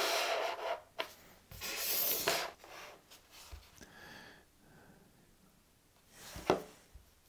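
Handling noise: several soft rubbing and scraping sounds with quiet gaps between, the last a short, sharper one near the end.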